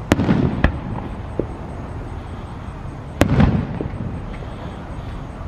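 Aerial fireworks shells bursting: a sharp bang with a rumbling tail and a smaller crack just after, then another bang about three seconds later.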